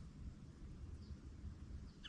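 Quiet river ambience: two faint, short high bird chirps about a second apart over a low rumble.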